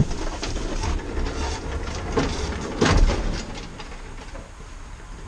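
Lawnmower being wheeled off the back of a van: irregular rattling and knocking, with a heavy thud about three seconds in, then quieter.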